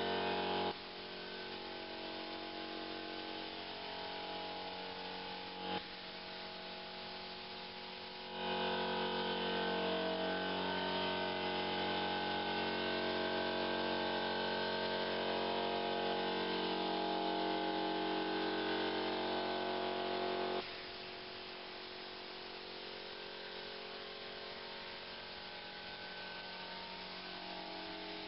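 Steady hum of an air compressor over a hiss of air, from the spray-painting rig. It jumps abruptly to a louder, fuller hum about 8 seconds in and drops back about 21 seconds in.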